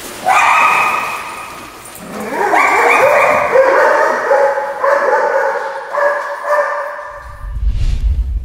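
A dog giving a run of long, high-pitched whining cries: one short one right at the start, then several drawn-out ones from about two and a half seconds in until near the end. A low rumble comes in near the end.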